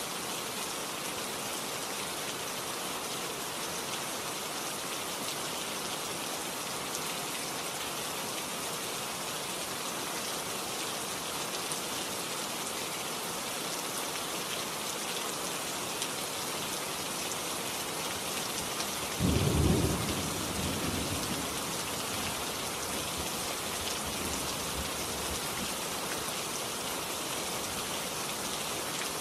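Steady rain-like hiss, with a brief low rumble about two-thirds of the way through.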